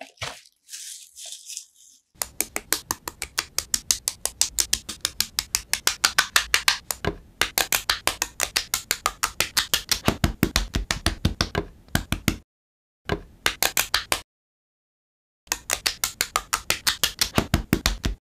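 Small plastic LEGO bricks clicking as they are pressed together, a rapid, even run of sharp clicks about five or six a second. The clicking cuts off abruptly into silence twice, with a softer rustle in the first two seconds.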